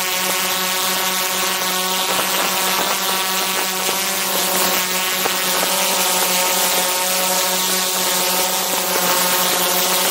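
Quadcopter drone's electric motors and propellers running steadily while it hovers: a constant buzzing whine over a steady hiss, heard close up from a camera mounted just beneath the propellers.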